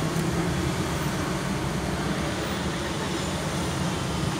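2012 BMW 740Li engine idling steadily, just after being started.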